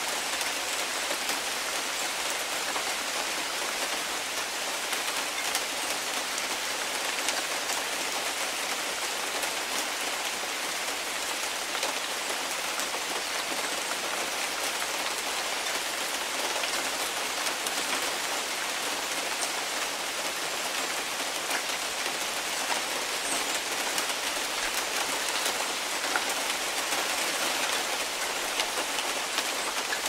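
Heavy rain falling steadily, a dense even hiss with single drop hits ticking through it.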